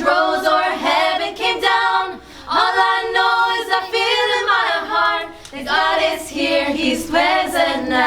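Voices singing a worship song a cappella, a woman's voice to the fore, in phrases of long held notes with vibrato.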